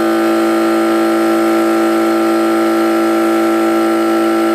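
Air compressor running with a loud, steady motor hum and drone, with no change in pitch or level.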